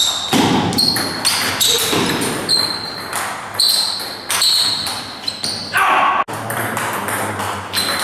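Table tennis rally: the ball clicking off the bats and bouncing on the table in quick succession, each hit a sharp click with a short ringing ping.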